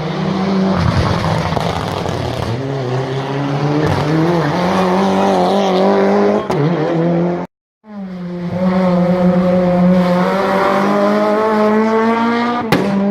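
Race car engines at high revs on a hillclimb run: one car's engine note wavers up and down, then after an abrupt cut another engine pulls hard with its pitch climbing steadily. A single sharp crack sounds near the end.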